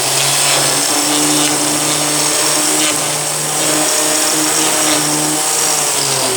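Metabo four-bladed electric grinder, spinning at about 10,500 RPM, running steadily with a hum while it grinds a raised plug down flat. The motor cuts off right at the end.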